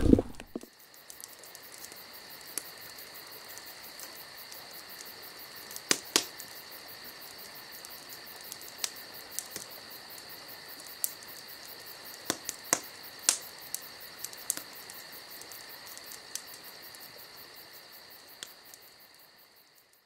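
Insects chirping steadily in the night, with scattered sharp pops and crackles from a wood campfire; it all fades out near the end.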